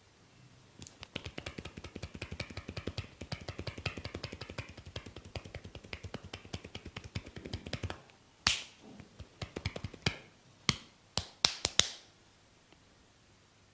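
Fingertips rapidly tapping on a person's forehead during a head massage, a quick even patter of light taps. After that come half a dozen louder, sharper snaps or slaps, spaced irregularly.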